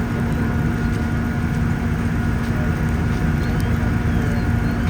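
Fire apparatus diesel engine running steadily: a low drone with a constant hum over it.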